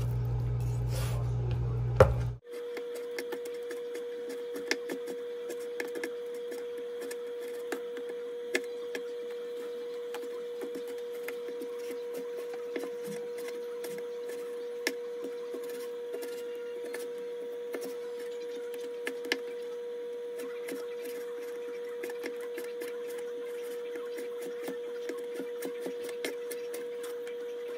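Kitchen knife cutting raw pork into cubes on a wooden cutting board: irregular light knocks of the blade against the board, over a steady background hum. A deeper hum with two sharp knocks fills the first two seconds, then cuts off abruptly.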